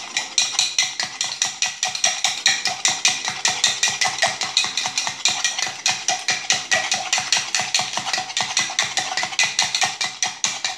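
Bar spoon stirring in a metal mixing tin, clinking against the side in a fast, even rhythm of about five strokes a second, until it stops at the very end. The stirring dissolves the thick honey decoction (abamele) into the liquid.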